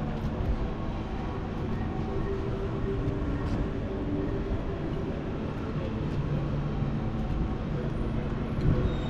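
Steady low rumble of city street ambience, like passing traffic, with a faint hum running through it.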